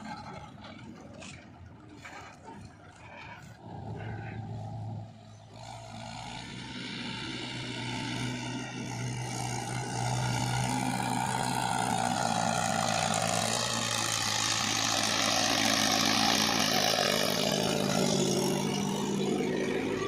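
Diesel engine of a Mahindra 475 DI tractor pulling a trailer loaded with soil. It is faint at first, then grows steadily louder from about six seconds in as the tractor comes close.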